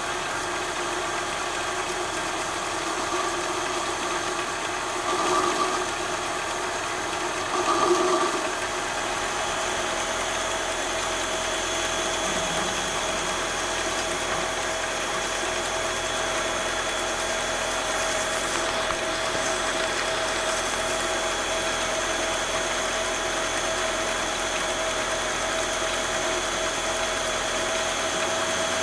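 Metal lathe running steadily while turning down a large bolt, its motor and gearing giving a constant whine with a few steady tones. Two brief louder swells come about five and eight seconds in.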